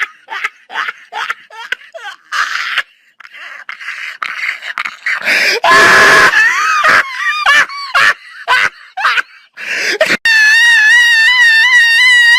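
People laughing hysterically, at first in short gasping bursts, then breaking into loud shrieks about halfway through. Near the end comes a long, high, wavering squeal of laughter.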